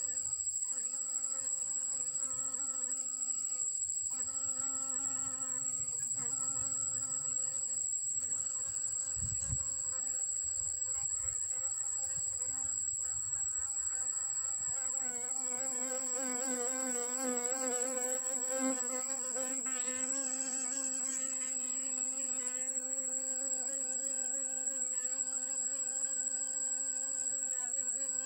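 Wild honeybee buzzing in flight around a flower. Its hum wavers up and down in pitch from about halfway through, as the bee flies close. A steady high-pitched whine sounds behind it throughout.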